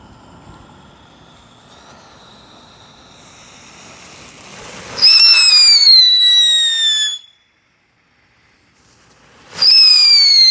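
Mighty Max Orient Express novelty firework going off: a hiss builds, then two loud whistles. Each whistle falls in pitch and lasts about two seconds. The first starts about five seconds in, and the second starts near the end after a short gap.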